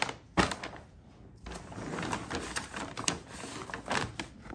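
Large brown paper shopping bag full of clothes crinkling and rustling as it is set down and handled, with a sharp crackle about half a second in.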